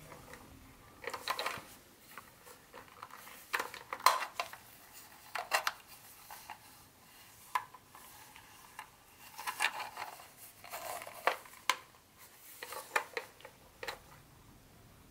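Plastic Lionel John Deere toy boxcar being handled: scattered light clicks, taps and rattles as it is turned over and its sliding door is opened and shut.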